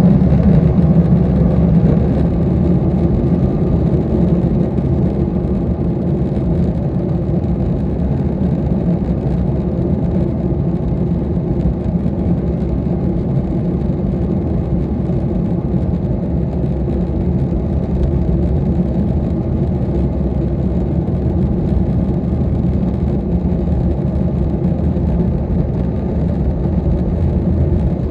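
Boeing 737 MAX 8's CFM LEAP-1B jet engines at low taxi thrust, heard from inside the cabin as a steady drone with several steady tones, a little louder in the first two seconds.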